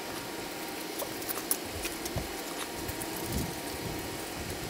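Faint, scattered clicks and light knocks of hydraulic lifters and plastic lifter trays being pressed into the lifter bores of a bare LS V8 engine block by hand.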